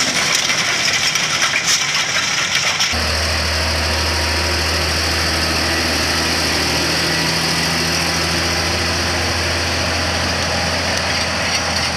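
A tractor working a Pöttinger Terradisc disc harrow through soil, with engine noise and scattered metallic rattles and clicks. About three seconds in, this gives way abruptly to a tractor's diesel engine running steadily with a strong low hum as it tows a drum roller along a road.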